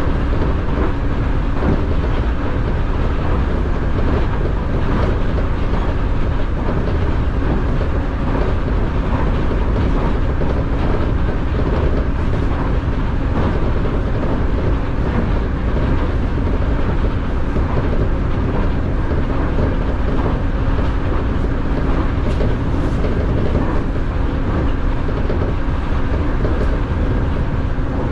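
Nankai airport express electric train running at speed, heard from just behind the driver's cab: a steady rumble of wheels on the rails with a low even hum and a few faint clicks over the rail joints.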